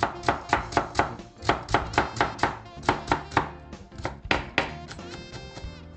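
Kitchen knife chopping carrot into thin strips on a wooden cutting board, a rapid run of strokes about four a second that thins out about five seconds in. Background music plays throughout.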